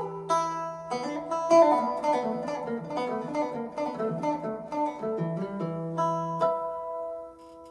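Three-string cigar box guitar being picked: a melody of single plucked notes over a low droning string, with the last note left to ring and fade near the end.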